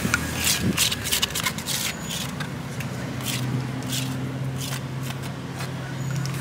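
Repeated short scrapes and paper rustles as rujak fruit and its thick chili sauce are scraped out of a stone mortar onto brown wrapping paper, with a steady low hum starting about three seconds in.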